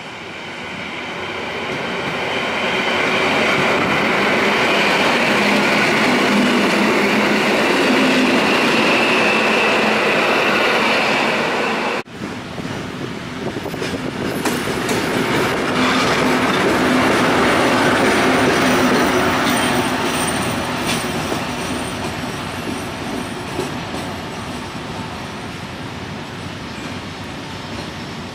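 Trains running through a railway station. First an EN57 electric multiple unit pulls in, and the rumble of its wheels on the rails builds over the first few seconds and then holds steady. After a cut, more wheel-on-rail noise swells to a peak with a thin high squeal, then slowly eases.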